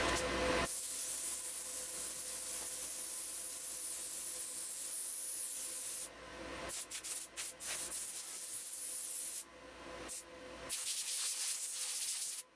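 Sandpaper scrubbing across a wooden desk top, coarse 40-grit paper backed by thick foam, making a steady scratchy hiss. It starts abruptly about a second in and breaks off in several short pauses in the second half.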